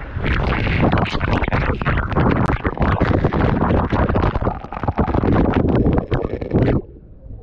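Water rushing along a water slide, with a low rumble and many knocks and bumps as a rider slides down. The sound cuts off abruptly near the end.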